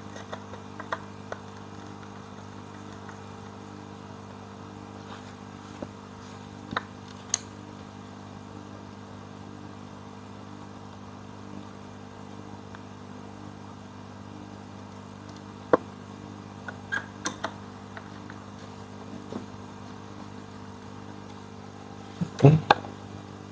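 Occasional sharp clicks and knocks of a hand screwdriver and wooden parts as screws are driven by hand into a pine slat rack, over a steady low hum with several held tones. The loudest knocks come near the end.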